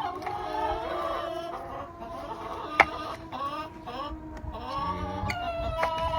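Hens in a coop clucking and making drawn-out calls, with one sharp click near the middle.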